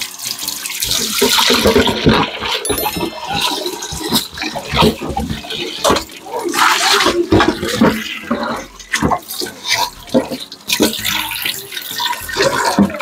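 Water running from a kitchen tap into a sink while dishes are washed, with scattered clinks and knocks throughout.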